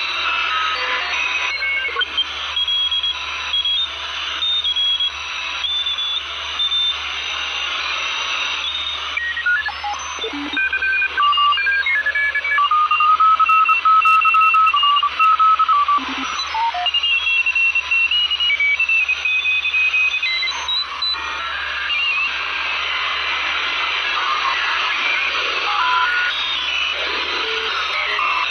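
Radio receiver being tuned across frequencies: a thin, steady hiss of static with whistling tones that jump from pitch to pitch as the frequency changes.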